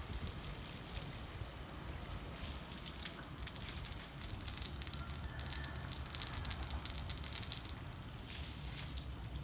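Water from a garden hose spraying onto freshly poured concrete to keep it wet while it cures: a steady spattering hiss with fine crackles of water striking the surface.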